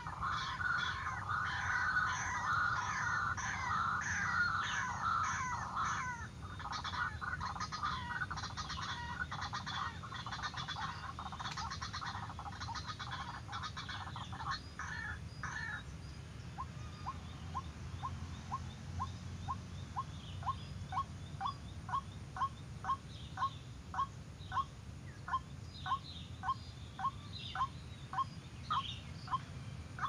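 White-breasted waterhen (ruak-ruak) calling: a dense, fast chattering of croaking calls for about the first half, then a long series of single short 'kook' notes, nearly two a second, growing louder.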